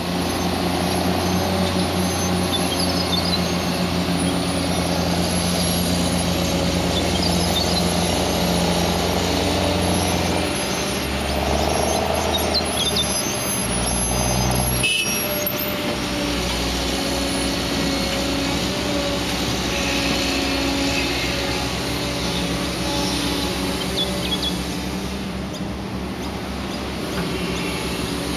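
Diesel engines of a Caterpillar 315D L excavator and a Caterpillar 725 articulated dump truck running, the engine note shifting several times midway as the excavator digs and swings loads of sand to the truck. One sharp knock about halfway through.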